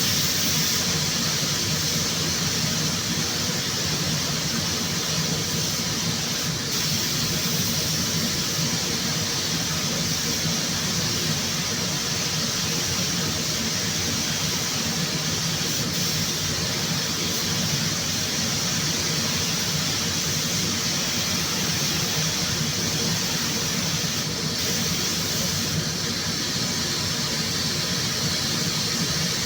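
Compressed-air paint spray gun spraying: a steady hiss of air and atomised paint, let off briefly twice.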